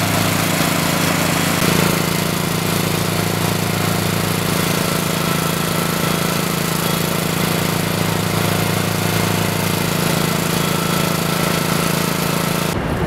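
An engine running steadily at an even speed, its tone shifting slightly about two seconds in, then stopping abruptly near the end.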